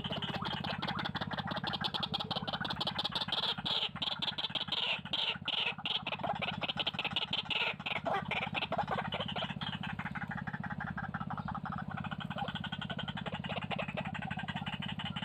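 White-breasted waterhen calls: a fast, harsh, chattering run of croaks, loudest in the first half, over a steady low hum.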